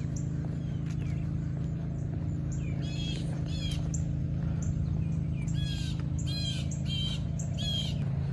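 Small birds chirping: quick, high, repeated calls that come in bunches, about three seconds in and again near the end, over a steady low hum.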